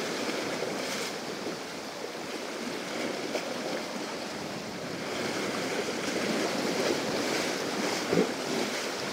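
Sea waves surging and breaking against a rocky shore, the foaming wash swelling and easing, with one sharper splash about eight seconds in.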